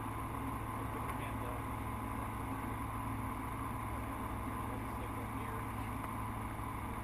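Light aircraft's piston engine and propeller running steadily, heard from inside the cockpit as a constant drone.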